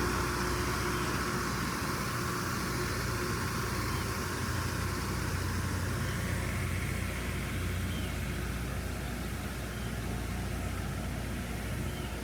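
Steady low engine-like hum under an even wash of outdoor noise.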